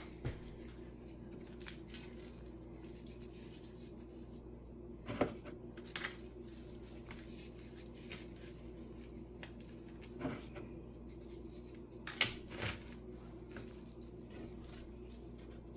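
A few soft clicks and rustles of hands handling a salt container and a raw tomahawk steak while salting it, over a steady low hum.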